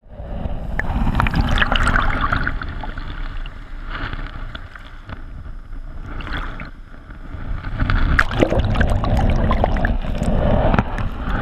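Seawater washing over and around a GoPro camera at the surf line, heard through the camera's housing: muffled sloshing and gurgling with many small crackles. It swells in the first seconds, eases off in the middle, and swells again from about eight seconds in as the next waves wash over.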